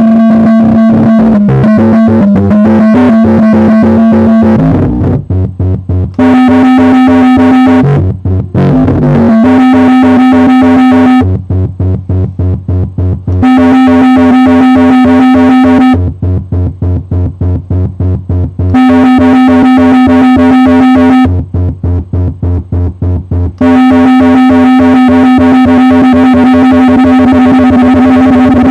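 Homemade Pong Fong synthesizer, an Atari Punk Console built around a Basic Stamp emulating oscillators, played by turning its potentiometer knobs. A held electronic note alternates every couple of seconds with a stuttering pulse pattern of about four pulses a second, with pitch steps and a glide in the first ten seconds.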